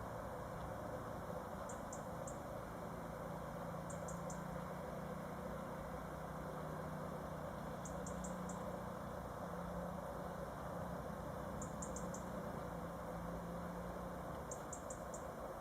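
Bird cries: quick high chirps in bursts of three or four, repeating every few seconds, over a steady low hum.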